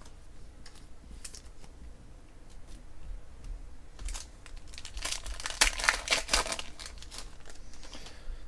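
Foil trading-card pack wrappers crinkling and cards clicking as they are handled. Light scattered clicks at first, then a busier stretch of crinkling about five seconds in that lasts a second and a half.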